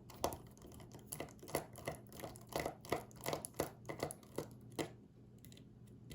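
Quick small clicks and scrapes of a tool prying at the battery inside an opened iPhone 5, an irregular run of sharp taps that stops about five seconds in.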